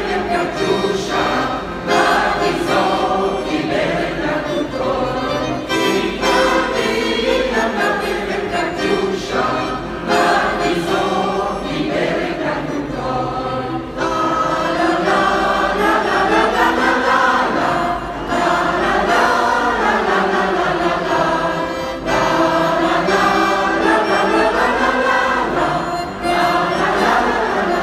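An amateur mixed choir of men and women sings together in long phrases. The melody rises and falls, and a new phrase starts about halfway through.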